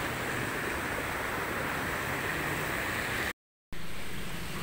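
Steady rush of flowing floodwater, an even noisy hiss, with the sound dropping out completely for a moment a little over three seconds in.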